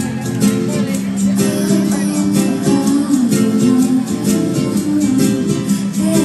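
Live concert music from a stage band, led by guitars strummed in a steady, even rhythm over held chords.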